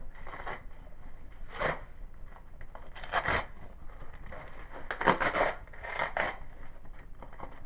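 A package being cut and torn open: a handful of irregular scraping strokes through packing material, the loudest about five seconds in.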